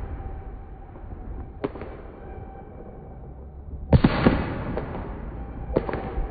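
Fireworks going off around the street: a sharp bang about a second and a half in, a louder bang with a trailing rumble about four seconds in, and another bang near the end.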